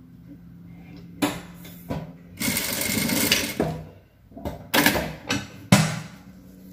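Jack industrial lockstitch sewing machine stitching satin bias binding onto tulle in short bursts, the longest about a second and a half near the middle, with a few sharp clicks between runs over a low steady hum.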